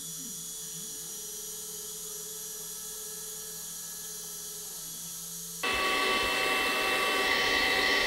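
VEVOR 3-axis desktop CNC router's 120 W spindle running steadily, with the stepper motors whining in short rising and falling glides as the axes move. About five and a half seconds in, a cordless handheld vacuum cleaner switches on, much louder, and drowns the router out.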